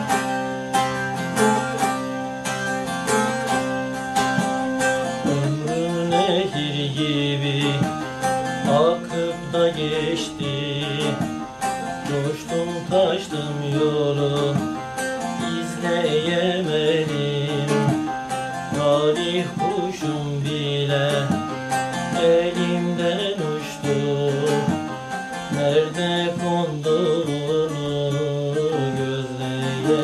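Bağlama (long-necked Turkish saz) plucked in a brisk folk-song accompaniment. About five seconds in, a man's voice begins singing over it and carries on to the end.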